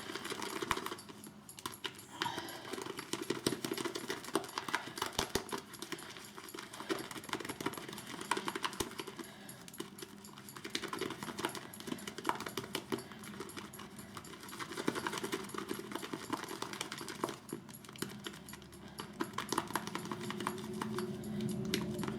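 Synthetic shaving brush whipping shaving soap into lather in a bowl: rapid, continuous strokes of the bristles against the bowl, a dense run of small clicks.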